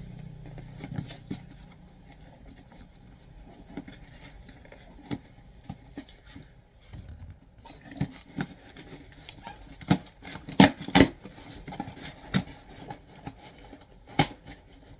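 Packaging being handled by hand: scattered clicks, taps and light scraping, with a run of louder knocks in the second half.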